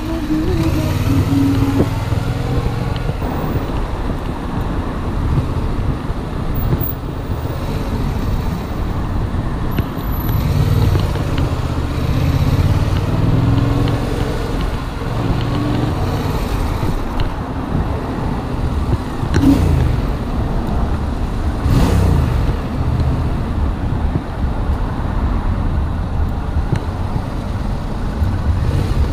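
Yamaha MT-07's parallel-twin engine running at low road speed, its pitch rising and falling briefly a few times as the throttle opens and closes, over steady traffic and road noise.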